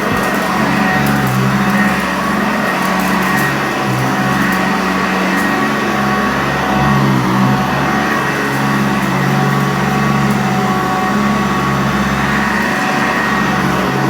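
Sanitaire upright vacuum cleaner running steadily over carpet. The motor's whine holds several steady tones, and the lower hum shifts a little in pitch from moment to moment.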